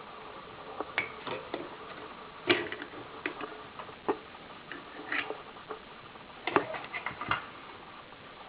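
Irregular small clicks and light taps, some in quick clusters, as of hands and tools working on a piece of equipment, over a faint steady hum.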